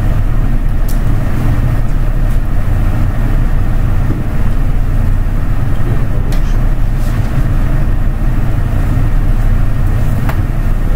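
Steady low hum and rumble of room and recording-system background noise, with a few faint clicks scattered through it.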